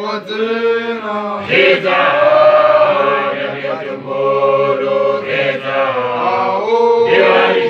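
A group of voices chanting a cappella together, holding long notes in phrases of a few seconds, swelling louder about a second and a half in and again near the end.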